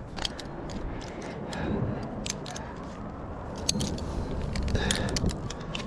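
Metal climbing hardware, carabiners and clips on a tree climber's harness, clinking and jangling irregularly as he moves, over low rustling from handling.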